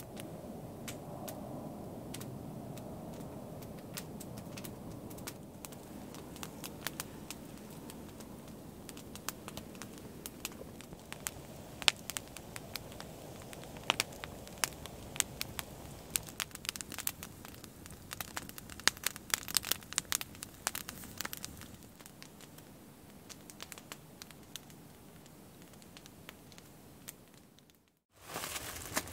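Wood campfire crackling, with many sharp pops and snaps scattered through it; the sound fades out near the end.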